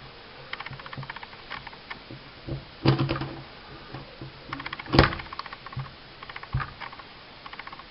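Small metal parts of a compact 1911-style 9mm pistol clicking and rattling as they are fitted together by hand, in several quick runs of fine clicks, with two louder sharp clacks about three and five seconds in.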